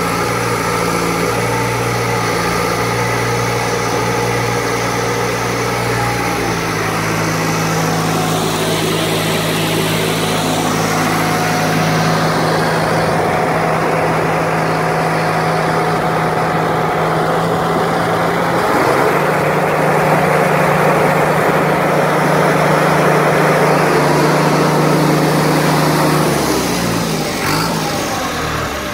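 John Deere 450G LGP crawler dozer's diesel engine running. Its speed steps up about six seconds in and again, louder, about two-thirds of the way through, then drops back near the end.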